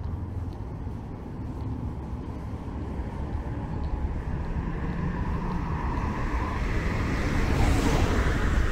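Road traffic on a multi-lane arterial street: engine rumble and tyre noise from passing cars. It grows steadily louder, and a car passes close about eight seconds in.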